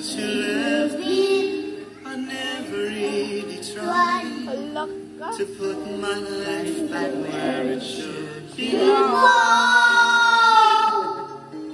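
A woman and a young boy singing a song together over a music backing track, the boy's voice going through a wired karaoke microphone into a small Bluetooth speaker. Near the end they hold one long, loud note.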